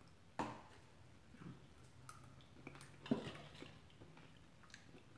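Faint close-miked eating sounds: a mouthful of chicken noodle soup being taken off a spoon and chewed, with a few short sharp mouth sounds, the clearest about half a second in and about three seconds in.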